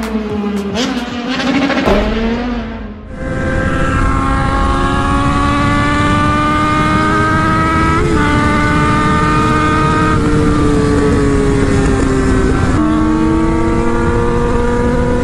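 For the first three seconds, a burst of motorcycle engine revs with sharp hits, cutting off suddenly. Then a sport motorcycle's engine runs at highway speed over a steady rushing noise, its pitch climbing slowly as it accelerates, with small shifts in pitch about halfway through and a step up near the end.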